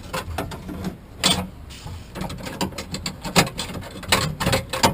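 Irregular small clicks and metallic knocks from hands working the rear door latch mechanism and its linkage rods inside a 1999 Chevrolet Tahoe door, with a sharper click about a second in and a quick run of clicks near the end.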